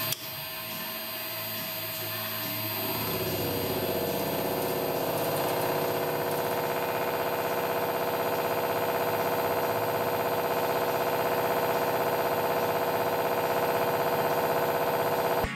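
Milling machine face mill at 1,000 rpm taking a 1 mm deep cut across a metal workpiece, driven by a power feed at 100 mm/min. The steady machining sound grows louder about three seconds in, as the cutter moves into the work, and then holds even.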